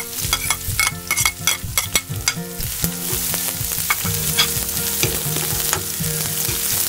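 Diced onion and minced garlic sizzling in hot oil in a steel wok while a spatula stirs them, scraping and clicking against the pan. The clicks come thick in the first couple of seconds as the onion goes in, then the frying sizzle runs on steadily with only occasional taps.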